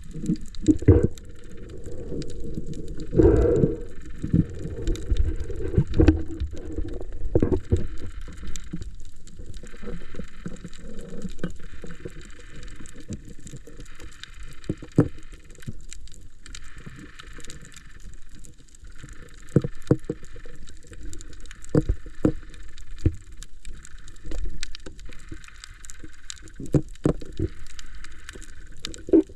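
Muffled sounds of a diver in the water: a low rumble with scattered knocks and clicks, louder in the first few seconds. From about a quarter of the way in, a hiss comes and goes every second or two.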